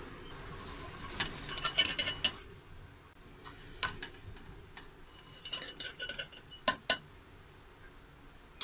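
A metal spoon stirring cooked rice in an aluminium pot, knocking and scraping against the pot with short ringing clinks. The clinks come in clusters, loudest about a second and a half in and again near seven seconds.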